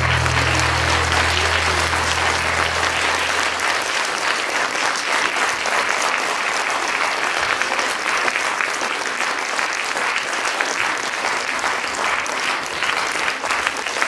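An audience applauding steadily, with the last low note of the music fading out over the first few seconds.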